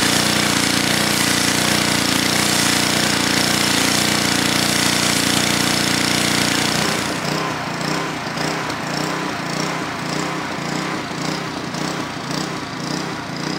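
Pressure washer running steadily, its motor hum under the hiss of the water jet blasting the motorhome's roof. About seven seconds in, the sound drops a little and turns uneven and pulsing.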